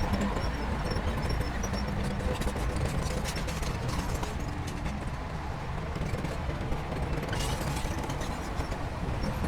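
Heavy diesel construction machinery running, a steady low rumble with scattered clanks and rattles.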